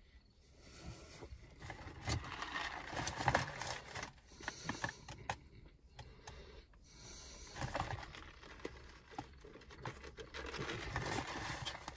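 Close-up eating noises: a man chewing and handling his fast-food meal, heard as irregular soft clicks and crackles in two spells, then sipping a soft drink from a plastic cup near the end.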